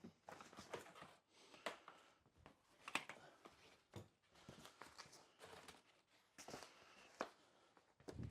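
Faint, scattered light knocks and taps, roughly one every second, over quiet room tone.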